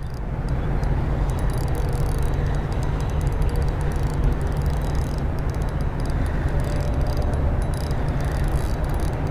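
Strong wind buffeting the microphone: a steady, loud low rumble with no break.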